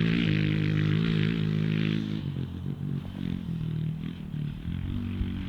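Honda CRF110F pit bike's small single-cylinder four-stroke engine running, its pitch rising and falling with the throttle. About two seconds in it drops to a quieter, lower running sound.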